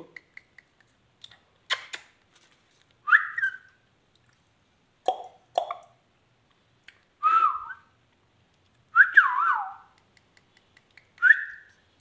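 Indian ringneck parakeet giving a series of short whistled calls with a wavering, warbling pitch, with two lower, shorter calls in the middle and a couple of sharp clicks near the start.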